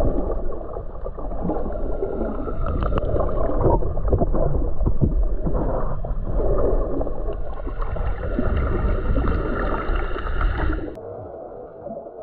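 Water sloshing and bubbling, heard muffled through a GoPro's microphone underwater, with irregular crackles. It drops suddenly to a quieter, duller rumble about eleven seconds in.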